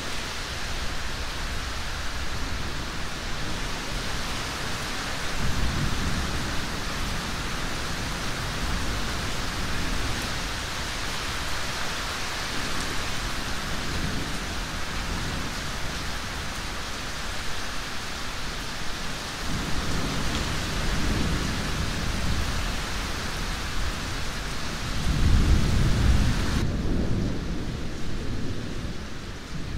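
Steady heavy rain with thunder rumbling low several times, the loudest roll about 25 seconds in. Near the end the rain's hiss suddenly turns duller.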